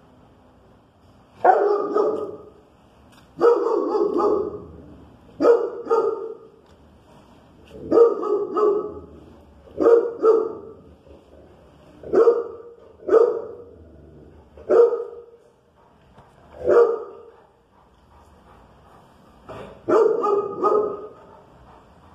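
A dog barking again and again, a bark or a quick pair of barks about every two seconds.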